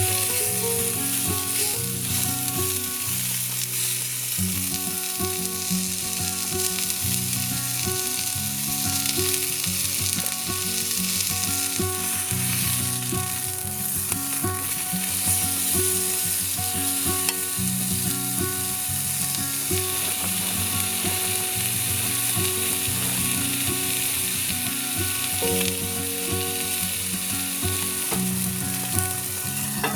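Food sizzling steadily in a pan over soft background music with slow, sustained low notes.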